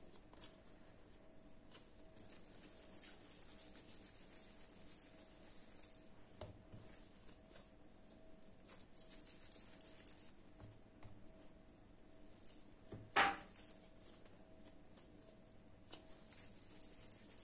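Faint soft handling sounds of hands rounding yeast dough into balls and setting them down on a granite countertop, over a faint steady hum. One brief, louder sharp sound cuts in about three-quarters of the way through.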